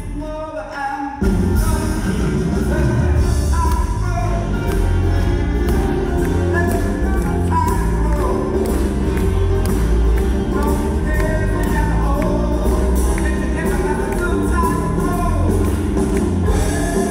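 Male vocalist singing live with a big band of saxophones, trombones and rhythm section; the full band comes in about a second in, over a steady beat.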